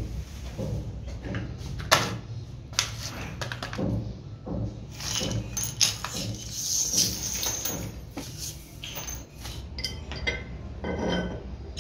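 Small metal valve parts of a piston water pump, discs, washers and coil springs, clinking and rattling irregularly as they are handled and set onto the valve plate.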